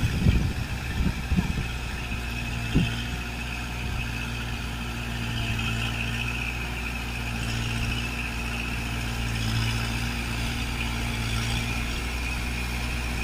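Kubota MU4501 tractor's four-cylinder diesel engine running steadily as it pulls a rotavator through flooded paddy mud, with a few short knocks in the first three seconds. It runs smoothly, with no strain on the engine.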